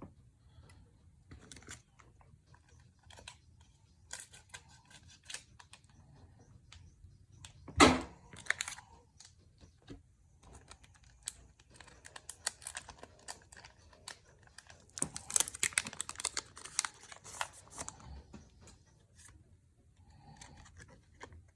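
Foil Pokémon card booster pack being handled and torn open: scattered crinkling, one loud rip about 8 seconds in, and a busy stretch of crinkling and rustling of the wrapper and cards near the end.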